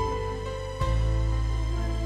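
1984 Fender Jazz Bass Special PJ electric bass played through an Electro-Harmonix Freeze sustain pedal: long held low notes under steady higher tones, with a new low note plucked just under a second in.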